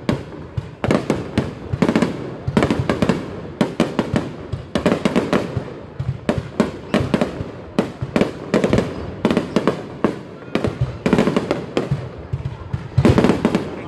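Fireworks display: rapid, overlapping bangs of aerial shells bursting, coming in dense clusters every second or two.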